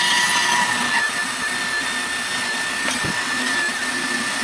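Handheld power tool running steadily at high speed, a constant high whine over a broad hiss.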